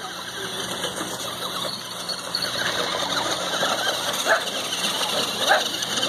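Small dog barking twice, short sharp barks in the second half, over the steady whine of an electric 1/10-scale RC stadium truck running across snow.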